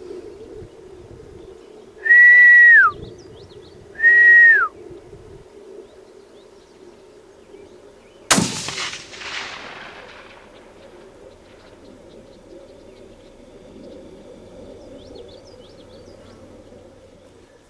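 Two loud whistles, each a held note that drops at the end, then about eight seconds in a single rifle shot cracks and echoes away. The shot misses the groundhog.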